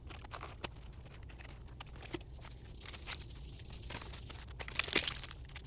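Clear plastic packaging tray from a doll box crinkling and crackling as it is handled and pulled out, with scattered sharp clicks and a louder crackle about five seconds in.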